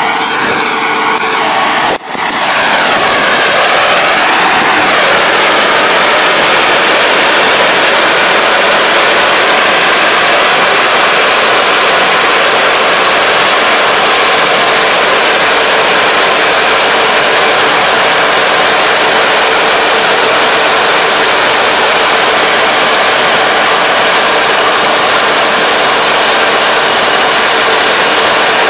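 Kubota DR575 five-row rice combine harvester running steadily while cutting rice, its engine and harvesting machinery making a loud, even noise. There is a brief break about two seconds in.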